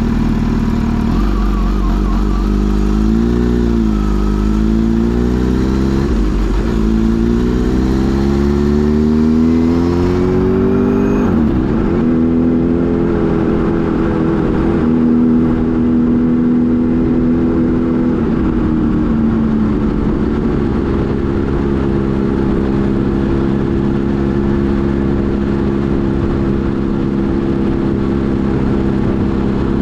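Kawasaki Z H2 SE's supercharged inline-four engine on the road: revs rise and dip briefly, then climb in a long pull before dropping suddenly at a gear change. It then holds a steady note at cruise, easing down once.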